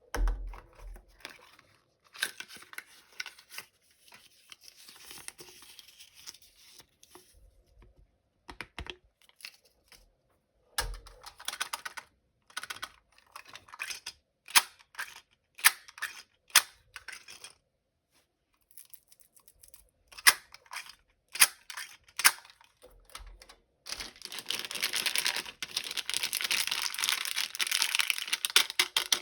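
Toy packaging being handled and opened: crinkling and tearing with scattered sharp clicks and taps, then a long stretch of dense crinkling near the end.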